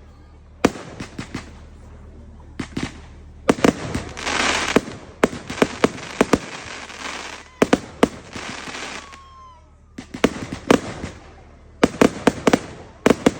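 Fireworks going off: a rapid series of sharp bangs with stretches of crackling between them, the densest crackle about four seconds in and another tight cluster of bangs near the end.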